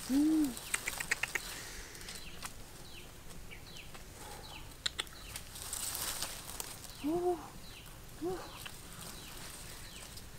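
Small birds chirping: repeated short falling chirps. Three short, low, rising-and-falling calls (the loudest sounds, near the start and twice near the end) and a quick run of clicks about a second in are heard over them.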